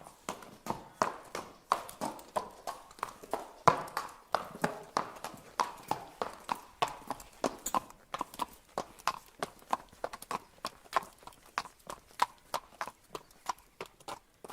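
Horse walking: a steady run of sharp hoof strikes, about three to four a second.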